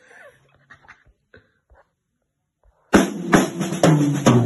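A few faint taps, then about three seconds in a band's drum kit and bass come in loud with cymbals ringing: the start of a studio recording take.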